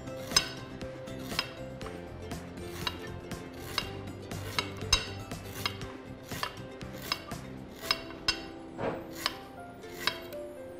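Cleaver slicing lemongrass into thin rounds on a glass cutting board: sharp knife-on-glass clicks, about two a second, over soft background music.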